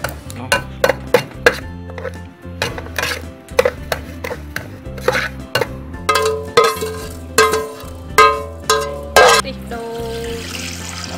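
A spatula stirring and scraping sesame seeds around a dry nonstick pan, a quick series of scrapes and knocks, with some clanks as the seeds are tipped out. Near the end, coconut milk is poured into a steel pot with a steady splashing hiss.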